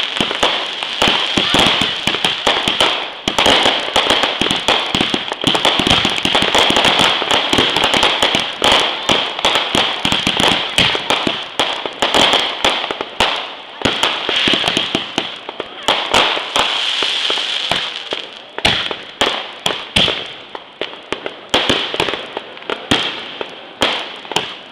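Consumer fireworks going off as a dense, rapid crackle of firecracker pops over a steady hiss. The crackle thins to scattered separate pops over the last several seconds.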